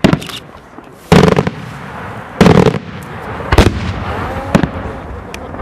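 Daylight fireworks display: a series of loud bangs, five in all, about one a second, each a short cluster of sharp cracks.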